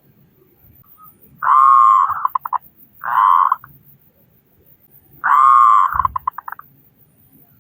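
Zebra dove (perkutut) cooing loudly. A long coo breaks into a quick run of short notes, then comes a single short coo, then another long coo trailing off in short notes.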